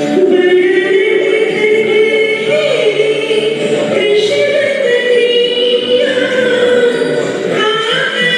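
Singing with musical accompaniment, a melody of long held notes that glide from one pitch to the next.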